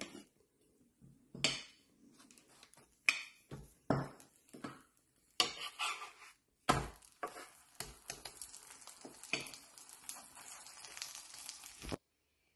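A spatula knocking and scraping on a flat tawa griddle as a folded börek is pressed and turned, with a steady sizzle of the frying börek in the second half that cuts off suddenly near the end.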